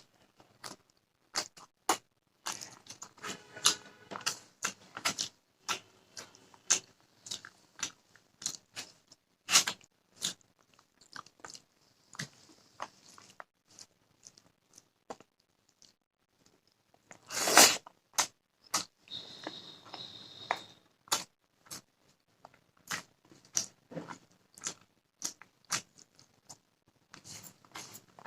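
Close-miked eating sounds: irregular chewing, lip smacks and wet mouth clicks of someone eating fish and rice. There is one loud crunch about 17 seconds in.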